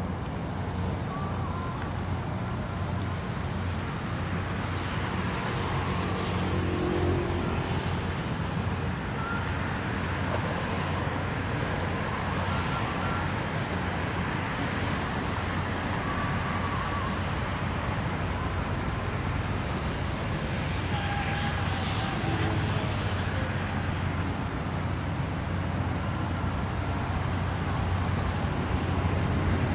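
Steady urban ambience: a continuous low hum of road traffic with no distinct events, only faint short sounds here and there in the mix.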